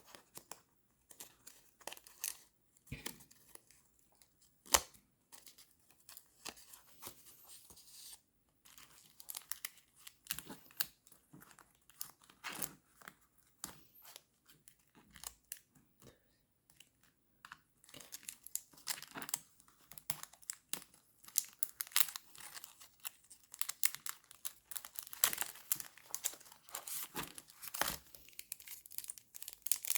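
Paper and plastic sticker packs being handled: irregular crinkling and rustling, with short sharp crackles that grow much busier in the last third.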